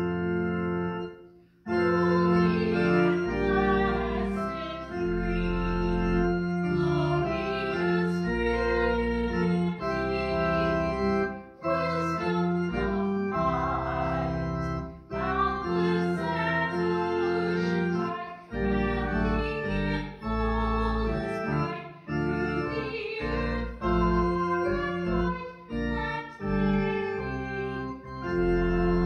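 Church organ playing a postlude after the dismissal: sustained chords over a deep pedal bass, with a short break about a second and a half in.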